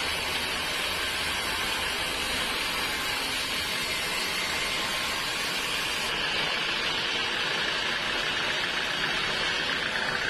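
Sawmill machinery running steadily, a constant noisy hum with a faint whine that grows a little stronger near the end.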